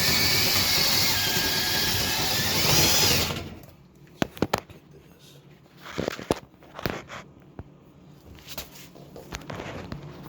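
Drill running, spinning a dryer vent cleaning brush on rods inside the vent duct, its whine wavering slightly, then stopping about three and a half seconds in. A few short clicks and knocks follow.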